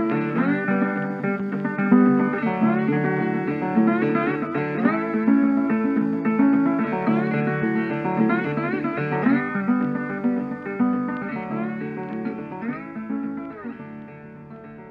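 Background music: plucked acoustic guitar playing, fading out over the last few seconds.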